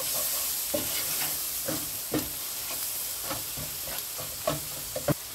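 Onion and spice masala sizzling in mustard oil in a pan while a spatula stirs it, the spatula knocking and scraping the pan about twice a second over the steady frying hiss.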